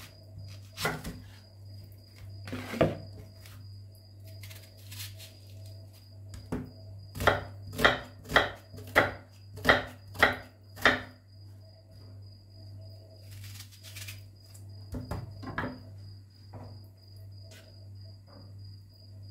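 Kitchen knife chopping an onion on a cutting board: scattered single cuts, then a run of about seven sharp chops at roughly two a second through the middle, then a few more cuts. Crickets chirp steadily in the background.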